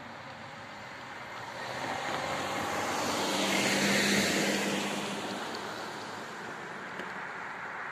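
A car towing a small box trailer drives past close by over the level crossing, its engine and tyre noise swelling to a peak about four seconds in and then fading away.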